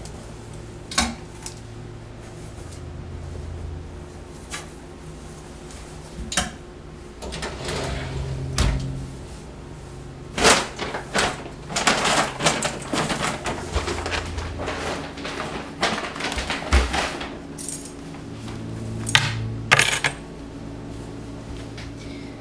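A run of small clicks, taps and rattles of objects being handled, thickest in the second half, over a low steady hum.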